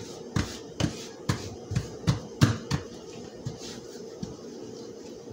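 Light taps of hands patting a damp paper towel flat onto a kitchen countertop, about three a second, thinning out after about three seconds, over a faint steady hum.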